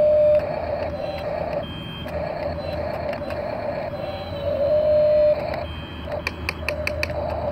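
The small electric motors and plastic gearboxes of a Double E 17-channel RC toy excavator whine in short runs that start and stop as the upper body slews and the boom moves.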